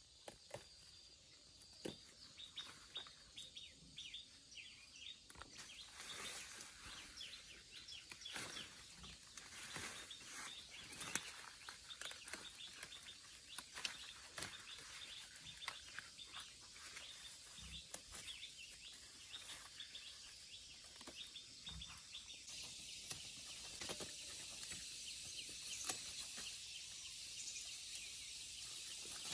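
Faint outdoor ambience: scattered short bird chirps over a steady hiss, with light clicks and rustles throughout, growing slightly louder toward the end.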